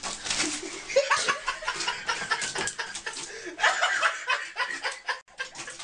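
A person laughing in short, repeated bursts.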